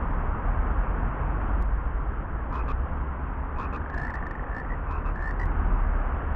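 Frogs croaking in short rapid bursts about midway, over a steady low rumbling outdoor noise.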